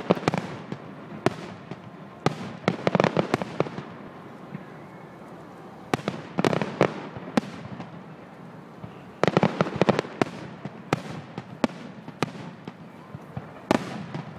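Aerial firework shells bursting overhead in a string of sharp bangs and crackles. The bangs come in clusters every few seconds, with the densest volleys about three, six and a half and nine and a half seconds in.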